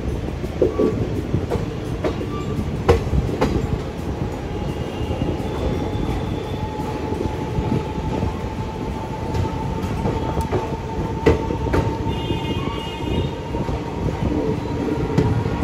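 Indian Railways passenger train running slowly through a station, heard from the coach doorway: a steady rumble of wheels on rails with scattered clacks over rail joints. A thin steady whine comes in after a few seconds.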